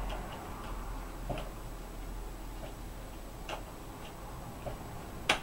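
Scattered small metallic clicks and ticks of pliers working on the laptop's stiff screw fittings, with one sharper click about five seconds in.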